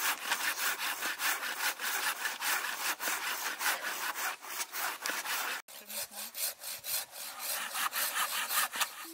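Hand saw cutting through a wooden log in quick, regular back-and-forth strokes, with a split-second break a little past halfway.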